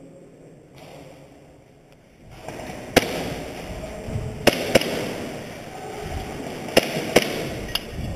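Airsoft gunfire: a single sharp shot about three seconds in, then two quick pairs of shots and a lighter crack near the end. Under them, the scuffing and rustling of someone moving quickly over a gritty concrete floor.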